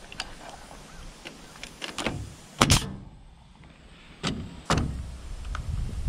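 Pneumatic coil nailer firing nails into a wooden trim board: three sharp shots, the first and loudest about two and a half seconds in, then two more close together a second and a half later, with small handling clicks just before.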